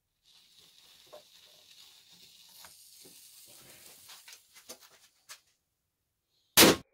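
A firecracker fuse burning inside a paper-and-cardboard model cannon makes a faint hiss with scattered crackles. Near the end the firecracker charge fires the cannon with a single short, loud bang.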